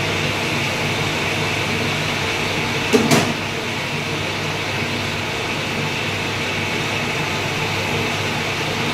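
Lathe running steadily with a machine hum, with a single short knock about three seconds in.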